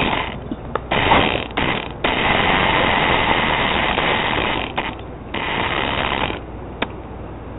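Radio-controlled toy monster truck's motor and gears running in bursts as it is driven across a tile floor, the longest burst about three seconds, with a few sharp clicks between them.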